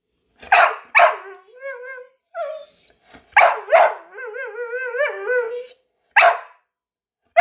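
Blue heeler begging for food: short sharp barks, mostly in pairs, broken by wavering, whining 'talking' sounds that rise and fall in pitch, the longest lasting about a second and a half.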